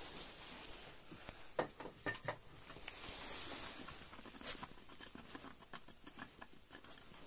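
Faint handling noise as a broken stalactite fragment is readied for gluing: scattered small clicks, taps and scrapes of hands, tools and rock, with a soft hiss for under a second about three seconds in.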